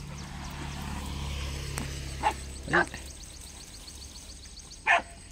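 Hunting dogs giving three short, high yelps, at about two, three and five seconds in, while chasing quarry through the undergrowth. Under them, a low rumble swells and then fades over the first three seconds.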